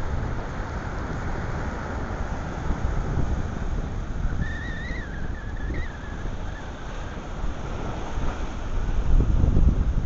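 Strong wind gusting across the microphone, over the wash of surf breaking on rock ledges. The wind grows louder near the end.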